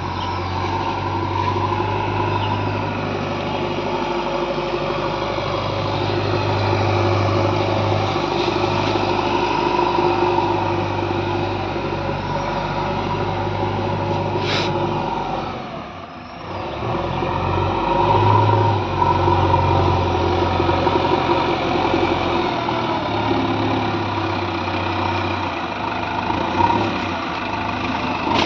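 JCB 3DX backhoe loader's diesel engine running steadily, its sound dropping briefly a little over halfway through.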